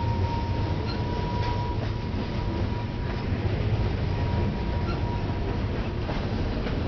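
Freight train tank cars rolling past on steel wheels: a steady low rumble with occasional clacks, and a steady high squeal that dies away about five seconds in.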